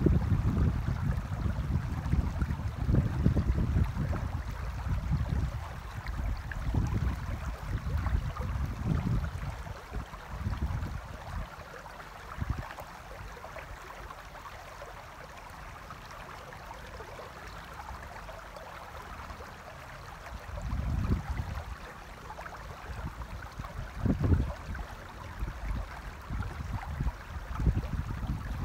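Shallow river flowing over stones, a steady rush of water. Low gusts of wind rumble on the microphone for the first ten seconds or so and again briefly a few times near the end.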